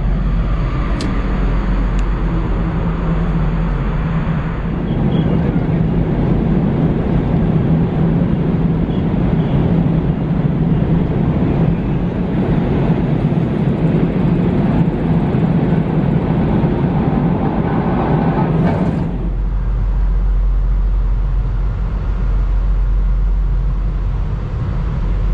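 Wind on the microphone on the open deck of the Kitakami car ferry, over a steady low hum from the ship's engines. About nineteen seconds in the wind noise drops away and a deep, steady drone near the ship's funnel takes over.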